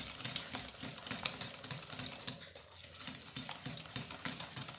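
A fork beating eggs, sugar and oil in a ceramic bowl: rapid, light clicking taps of the fork against the bowl.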